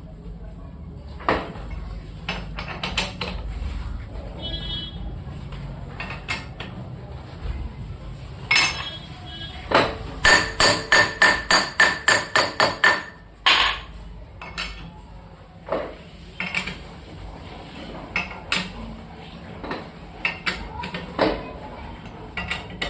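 Metal being struck with a hammer: scattered single knocks, then about ten seconds in a quick run of about a dozen ringing blows at roughly four a second, over a steady low hum.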